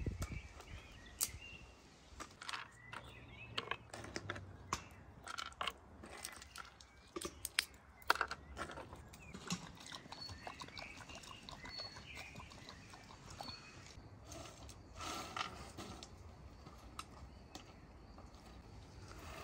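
Walnut shells crackling and clicking as kernels are picked out by hand, a scatter of small sharp clicks; partway through, two puppies eating from a bowl.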